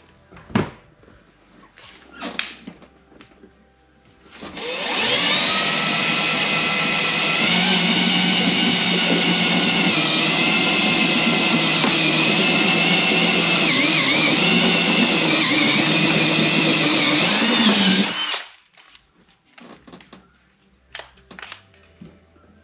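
Cordless drill boring an about one-inch hole through a boat's carpeted deck for a wire grommet: the motor whines for about fourteen seconds, its pitch dipping now and then as the bit bites, then stops abruptly. Light clicks and knocks of handling before and after.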